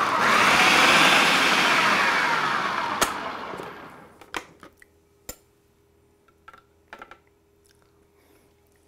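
Food processor blending a gastrique of chopped red bell peppers, shallot and orange juice. The motor runs at full speed, is switched off with a click about three seconds in, and winds down, fading out by about four seconds. A few light clicks and knocks follow.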